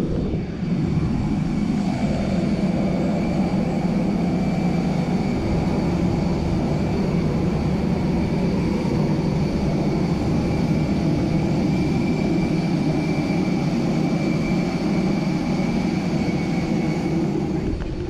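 Jet aircraft turbine noise on an airport apron: a steady loud roar with a thin, steady high whine over it.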